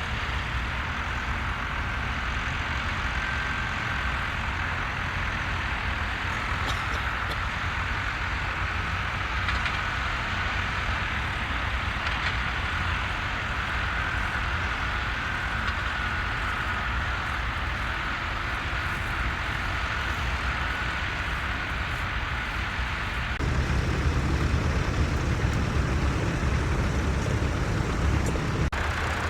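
Tractor engine running steadily under load while ploughing, a continuous low drone. Several seconds before the end the sound jumps abruptly to a louder, fuller engine noise.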